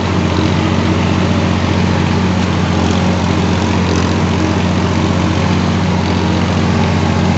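Valtra A950R tractor engine running steadily under load while it pulls a disc harrow through the soil.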